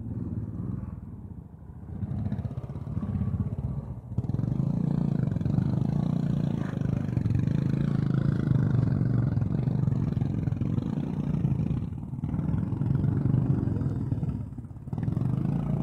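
Royal Enfield single-cylinder motorcycle engine revving in surges under heavy load as the bike struggles through deep mud. It gets loud and sustained a few seconds in, then eases and picks up again twice near the end.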